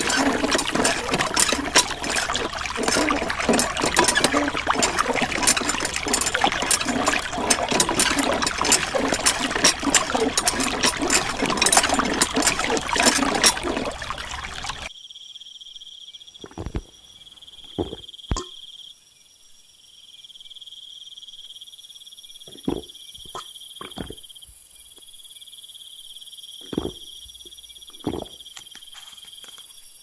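Water splashing and trickling from a miniature hand pump's spout into a plastic tray, full of small clicks. It cuts off suddenly about halfway, leaving steady high cricket chirping with several short knocks.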